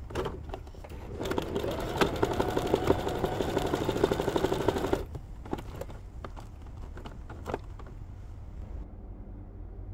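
Domestic sewing machine stitching fast in free-motion embroidery, a rapid run of needle strokes that stops suddenly about halfway through, followed by a few light clicks.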